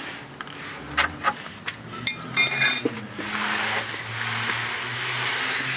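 Metal hand tools clinking and tapping against the exhaust pipe while working on an oxygen sensor under a car: a few sharp clicks, then a burst of ringing metallic clinks about two seconds in. A steady hiss fills the second half.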